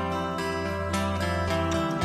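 Instrumental background music: plucked notes over a held low note.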